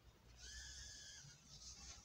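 Small drone's motors spinning up: a faint high whine with a hiss comes in about half a second in. The whine drops out after about a second, while the hiss carries on a little longer.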